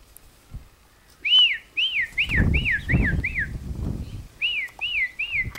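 A person whistling a run of short rising-and-falling notes, about two a second, calling the working dogs out to the horses. Six notes come, then a short pause, then more. A low rumble sits under the first run.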